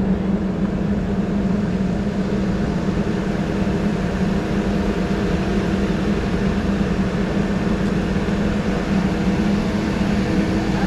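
Tractor engine running steadily at an even speed, a constant drone with no change in pitch.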